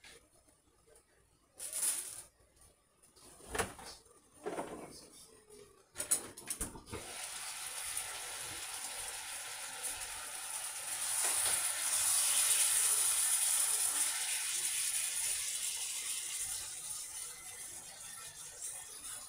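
A few knife strokes and knocks on a plastic cutting board, then from about seven seconds in a steady sizzling from food cooking in a hot pot on the stove, loudest a little past the middle and easing slightly towards the end.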